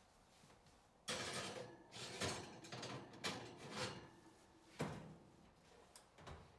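Clattering of a small cast iron skillet set down on an oven's metal wire rack, several sharp clacks and rattles of metal on metal, then the oven door swinging closed near the end.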